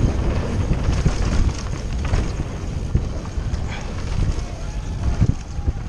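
Wind buffeting the microphone over the rattle and rumble of a mountain bike descending fast on rough ground, with irregular knocks.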